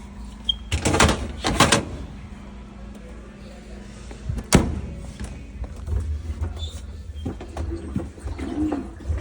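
A display washing machine's door being handled: a cluster of clunks and clicks about a second in, one sharp knock midway, then a few lighter clicks.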